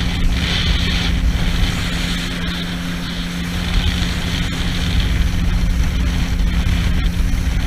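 Yamaha jet ski engine running steadily at speed, a constant drone over a rush of noise.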